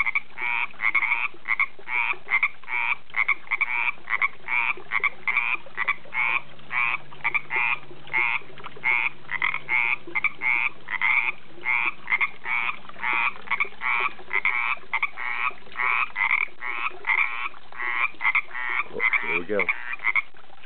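Frogs calling from a pond in a steady, unbroken run of short croaks, about two to three a second. Near the end a lower call falls in pitch.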